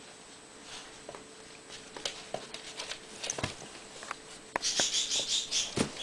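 Two dogs play-wrestling on a wooden floor: scattered scratching and tapping of claws and paws with a couple of soft body thumps, then near the end a rapid series of high squeaky sounds, about five a second.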